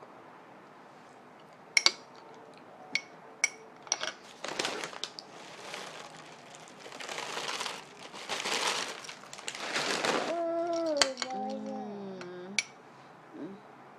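Handling noise: a few sharp clicks, then several bouts of rustling and crinkling. About ten seconds in, a toddler gives a drawn-out, high-pitched vocalization that falls in pitch.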